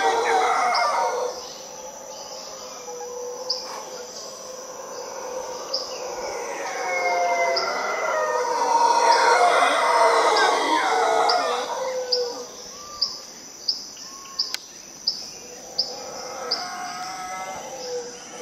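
Howler monkeys roaring in a chorus, loudest in the first second and again from about six to twelve seconds in, rising once more near the end. Between and through the roars a bird gives short high chirps, coming faster toward the end.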